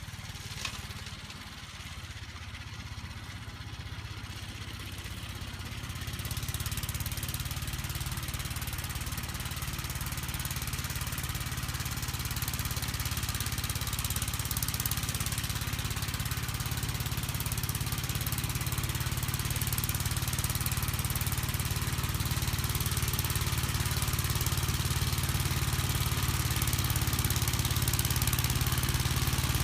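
The single-cylinder engine of a 1959 Gravely Model L walk-behind tractor with a snow blower attachment, running steadily. About six seconds in it grows louder, and it keeps slowly getting louder after that.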